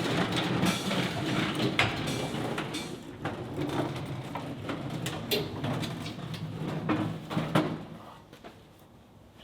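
A heavy door with a square-tube steel frame being handled and set on its welded hinges: irregular knocks, clunks and scraping, dying away about eight seconds in.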